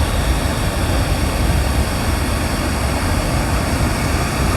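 Water rushing steadily over a man-made waterfall on the Arroyo Colorado, with wind buffeting the microphone in a low, fluttering rumble.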